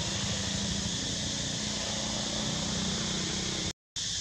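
Steady outdoor background noise: a constant hiss with a low hum under it. The sound cuts to complete silence for a moment near the end.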